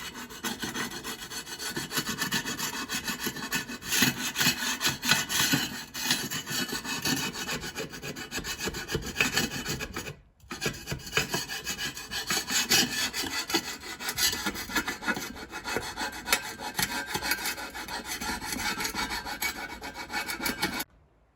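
Hand scraper rasping over the frame of a spirit level in quick repeated strokes, scraping off caked-on lumps of dirt. The strokes stop briefly a little after ten seconds, then go on.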